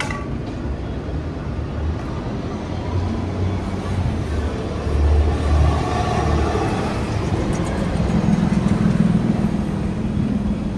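Street traffic: motor vehicles running and passing, a steady low rumble that swells about halfway through, followed by a steady low hum of an engine near the end.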